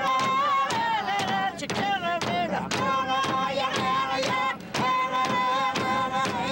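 Voices singing long held notes over regular drum beats about twice a second: an Inuvialuit drum-dance song with large frame drums struck with sticks.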